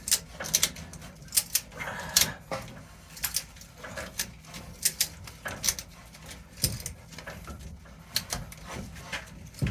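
Ratchet strap being cranked, its ratchet clicking in short pairs roughly once a second as it draws a PEX crimping tool's handles closed on a crimp ring.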